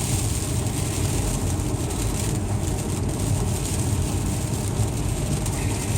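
Steady road noise and engine hum inside a car's cabin while it drives slowly along a snow-covered, icy street, with a steady faint hiss above it.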